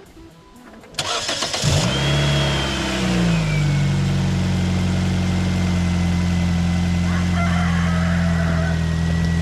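2005 Nissan Sentra's four-cylinder engine started on fresh ignition coils and spark plugs: the starter cranks briefly about a second in, the engine catches at once, revs up and settles into a steady idle. The idle is a little loud from a muffler that still needs fixing.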